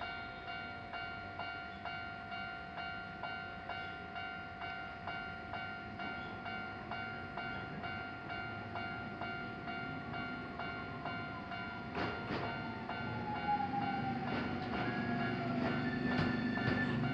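A level crossing's electronic warning bell rings steadily, a little under two strokes a second. In the second half a Keio Inokashira Line train comes in: its motor whine falls in pitch as it slows, and wheel-on-rail rumble grows louder toward the end.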